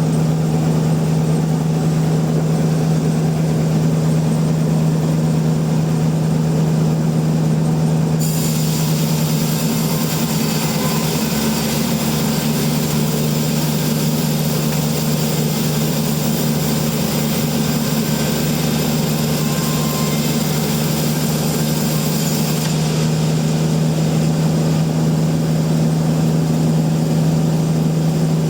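Sawmill machinery running with a loud, steady hum. A saw cutting through a log adds a high hiss that starts abruptly about a third of the way in and stops near the end.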